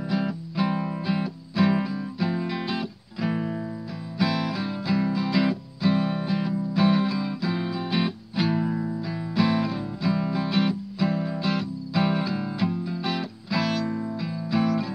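Acoustic guitar strummed in chords, with repeated sharp strokes that ring out between them.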